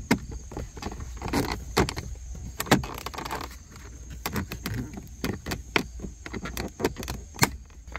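Irregular sharp clicks and knocks of interior trim being pressed into place: the wood-grain shifter bezel snapping into a Jeep Commander's center console.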